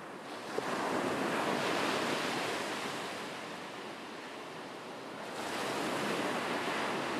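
Ocean surf: waves breaking and washing up a flat sandy beach. The rush swells about half a second in, eases, then swells again after about five seconds.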